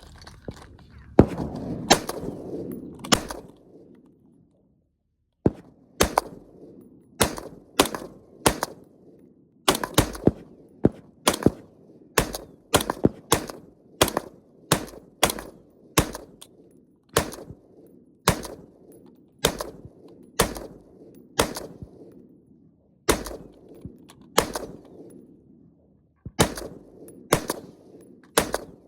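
M16 rifle firing 5.56 green-tip rounds as single semi-automatic shots, roughly one to two a second with an irregular rhythm and a pause of about two seconds near the start. Each shot has a short echoing tail.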